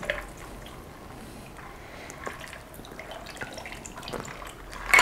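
A shaken cocktail being poured from a metal cobbler shaker's strainer cap into a tall glass packed with ice: a quiet, steady trickle of liquid with a few faint clicks of ice.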